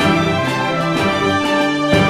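News bulletin theme music: sustained, held chords.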